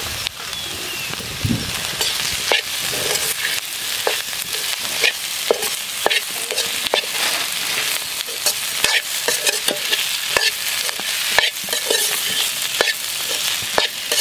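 Steel spatula scraping and knocking against an iron kadai as boiled potatoes are stirred into a frying onion and spice masala, over a steady sizzle. The scrapes and knocks come irregularly.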